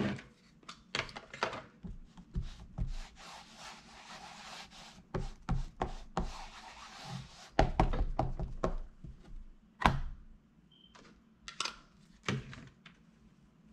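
Paper-crafting handling on a tabletop: an inked piece pressed and rubbed down onto watercolor paper, with scattered knocks and taps, a few seconds of rubbing in the middle, and a cluster of sharper knocks later on.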